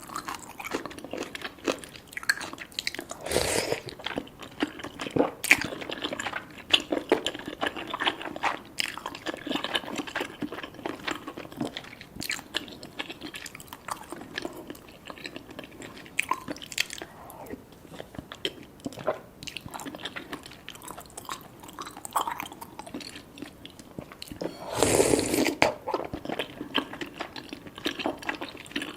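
Close-miked eating: steady chewing with wet mouth clicks and smacks, as cheesy rice cakes and fish balls are eaten. A louder, longer noisy burst comes about 25 seconds in.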